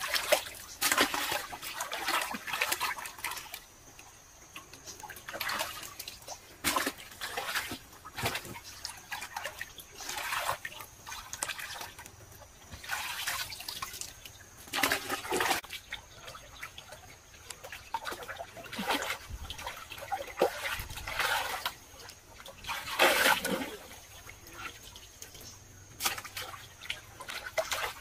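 Shallow muddy water splashing and sloshing in irregular bursts as someone wades and grabs fish by hand.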